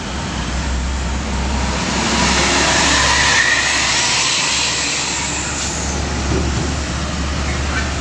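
Hino diesel lorry loaded with bricks passing close by: its engine and tyre noise swell to a peak about three seconds in and then ease off, over a steady low rumble.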